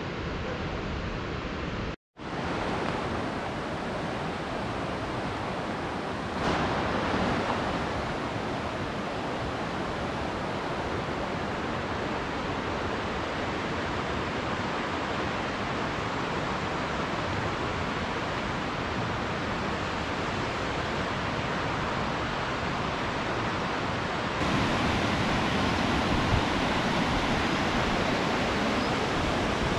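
The Baspa River rushing over rocks in a steady, unbroken roar of water. The sound breaks off briefly about two seconds in, then comes back and grows louder in two steps, near six seconds and a few seconds before the end.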